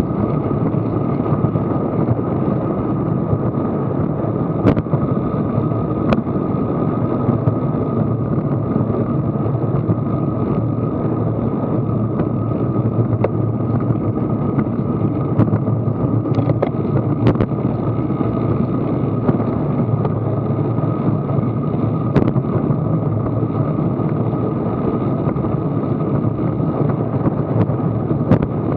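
Steady rush of wind and tyre-on-road noise on a bicycle-mounted action camera moving at about 15 to 20 mph, with a few sharp clicks from bumps or rattles.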